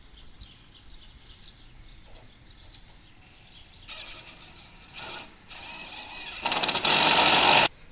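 Birds chirping faintly, then a handheld power drill running in short bursts from about four seconds in, ending in a loud run of just over a second that stops abruptly, as roller shutters are fitted to a window frame.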